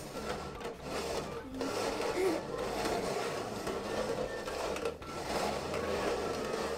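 Upturned red plastic cups being slid and shuffled across a tabletop: a continuous scraping and rubbing that eases off twice for a moment.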